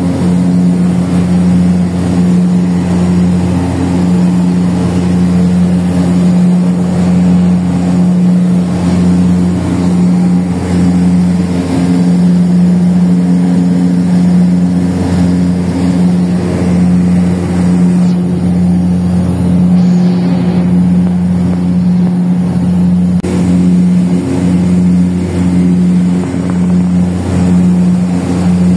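Aircraft engines droning steadily in flight, heard from inside the cabin: a loud, constant hum with an even pitch.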